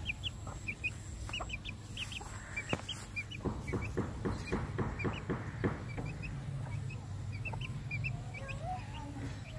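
Aseel hen clucking, with a quick run of low clucks at about five a second for a couple of seconds near the middle, while her chick gives short high peeps throughout.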